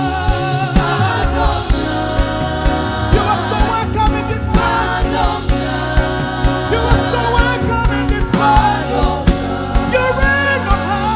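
Live gospel worship music: a band with drums and bass playing under singing voices.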